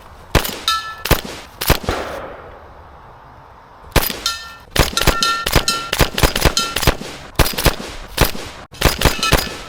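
Airsoft gun in an SRU bullpup kit firing: a handful of shots in the first two seconds, a pause, then a fast string of shots from about four seconds in. Many shots carry a short metallic ring.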